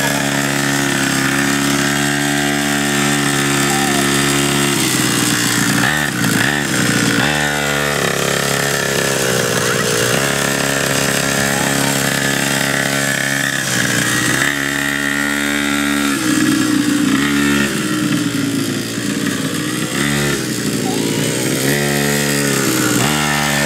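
Children's mini quad's small engine buzzing steadily, its pitch dropping and climbing again several times as the throttle is eased off and opened.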